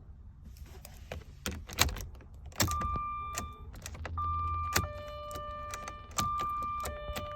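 Keys jangling and clicking at the ignition of a 2004 Jaguar XJR, with electronic warning tones sounding three times for about a second each. No starter or engine is heard: the car does not crank.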